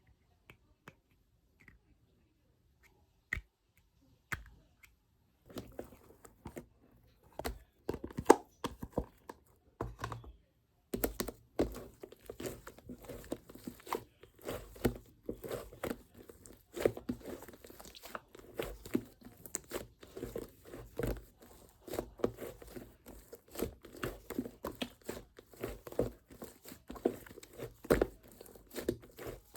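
Fluffy clay-type slime being squeezed and pressed by hand: a few faint taps at first, then a dense run of small crackles and pops from about six seconds on, with a short pause near ten seconds.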